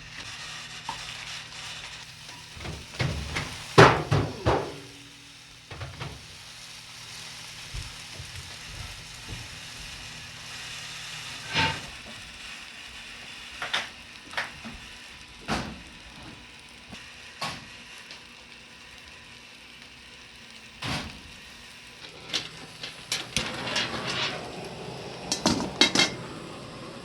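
Irregular clinks and knocks of dishes and utensils over faint steady background noise. The loudest is a quick cluster about four seconds in, with single knocks after it and a busier flurry near the end.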